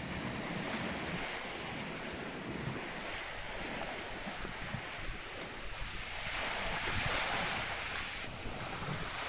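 Sea water rushing and hissing past a sailing yacht's hull and wake, with wind buffeting the microphone; the water hiss swells about two-thirds of the way through.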